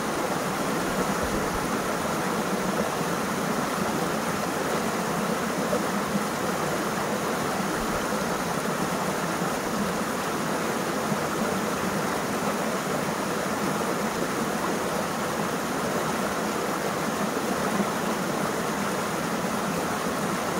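Steady rushing of flowing river water, an even wash of noise that doesn't change.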